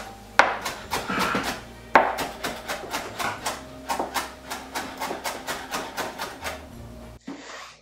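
Chef knife mincing cilantro leaves and stems on a cutting board: quick, even chops, about four a second, that stop near the end.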